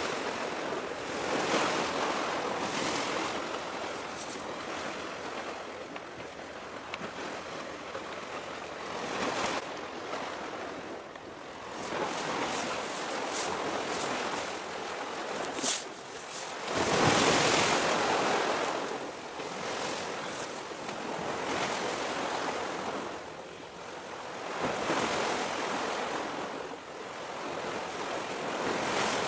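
Sea waves washing in and falling back every few seconds, mixed with wind noise, with one bigger surge a little past halfway and a single sharp click just before it.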